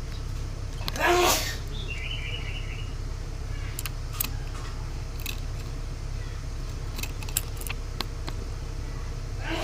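Cucak ranting songbird calling: a loud harsh call about a second in, then a quick run of short chirping notes, followed by scattered sharp clicks over a steady low hum.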